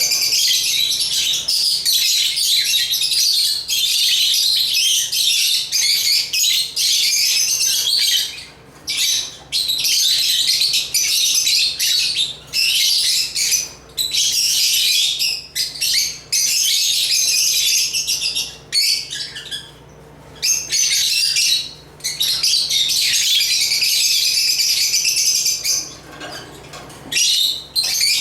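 African lovebirds (Agapornis) chirping in dense, high-pitched bouts lasting several seconds, broken by short pauses.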